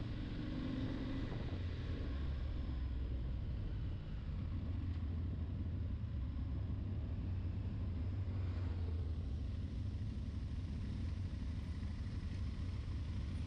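Onboard sound of an Aprilia Tuareg 660's parallel-twin engine running steadily at low speed, a low rumble with road and wind noise over it.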